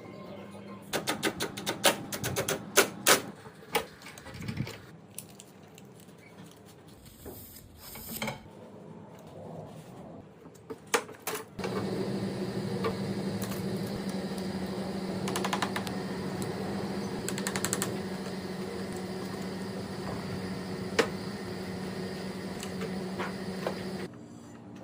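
A quick run of clicks and knocks, then scattered clicks. About halfway through, a motor starts running with a steady hum and stops suddenly near the end.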